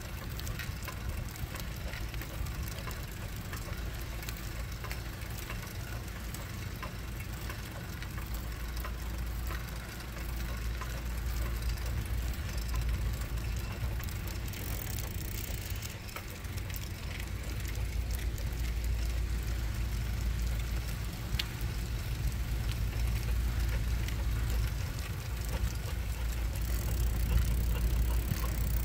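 Steady low rumble of wind and handling noise on a handheld camera's microphone as it is carried along at walking pace, growing a little louder over the stretch, with a few faint clicks.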